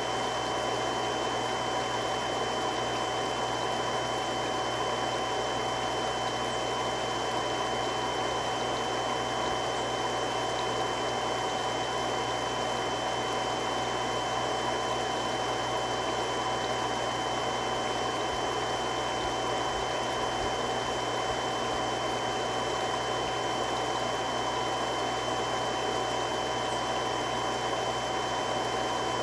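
Three-stage irrigation water pump running steadily: a continuous rushing hum with a few steady whining tones over it.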